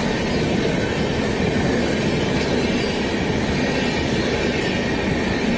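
Rajdhani Express passenger coaches rolling past at speed with a loud, steady rumble of wheels on rail. A faint high wheel squeal runs through it.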